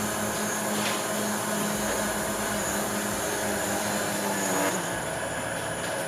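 DJI Mavic Pro quadcopter's propellers and motors whirring in flight with a steady whine. The note drops a little about three-quarters of the way through.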